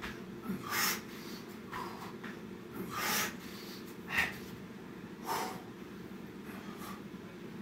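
A man breathing hard from the exertion of burpees, with short, forceful exhales and snorts about once a second. A steady low hum runs underneath.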